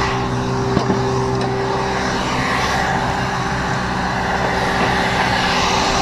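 Steady drone of a motor running with a low hum, and a single light knock about a second in.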